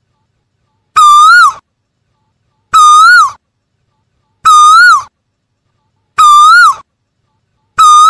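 Asian koel calling: a single loud, clear note that holds, lifts slightly and then drops away, repeated identically five times about every 1.7 seconds.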